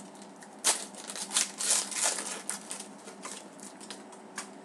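Trading card pack wrapper being torn open and crinkled in the hands. There is a quick run of crackles and rustles for about two seconds, then lighter, scattered rustles.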